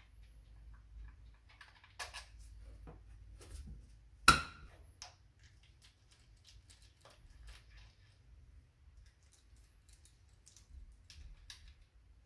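Small clicks and taps of a hex-bit driver and screws as the screws come out of a motorcycle's aluminium clutch cover, with one sharp clack about four seconds in that rings briefly.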